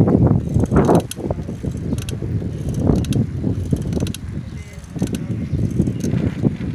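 Wind buffeting the microphone of a phone carried on a moving bicycle, a loud rushing that swells and eases, with short runs of fast clicking from the bike.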